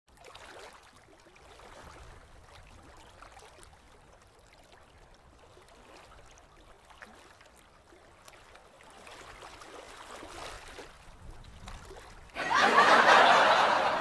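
Faint water ambience, then about twelve seconds in a sudden loud burst of people laughing and chattering.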